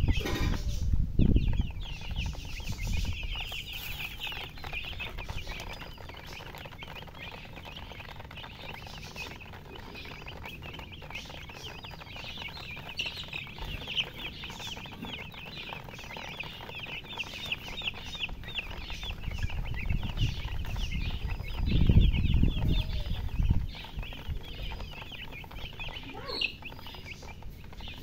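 A brood of baby chicks peeping continuously, many short high chirps overlapping. A low rumble comes near the start and again about 21 seconds in, the loudest part.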